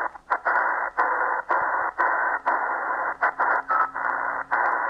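Eton Elite Executive shortwave radio's speaker hissing with band noise on 40 meters in lower sideband, no signal heard. The hiss is cut by a brief mute and click about twice a second as the tuning is stepped: the chuffing this radio makes as it tunes.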